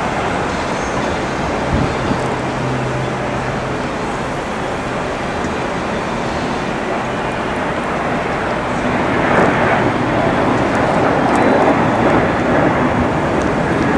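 Jet engines of a Boeing 737 climbing out after takeoff: a steady rushing noise that grows louder about nine seconds in.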